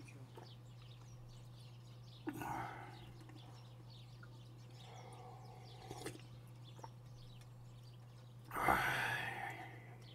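Breathy mouth and eating sounds from a person at a meal: a few short noisy exhales or chewing sounds, the loudest and longest near the end, over a steady low hum.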